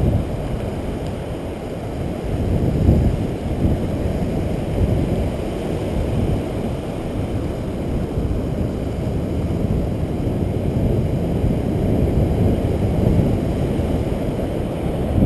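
Wind buffeting the microphone in a steady low rumble that swells and eases in gusts.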